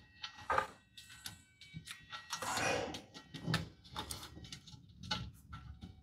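Hands handling a diesel heater's new glow plug and its wires and rubber boot: scattered light clicks, taps and rustles, with a longer scraping rustle about halfway through.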